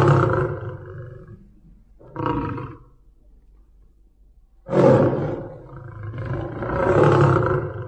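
Big cat roaring: a roar trailing off at the start, a short roar about two seconds in, then a sudden loud roar near five seconds that swells once more before fading.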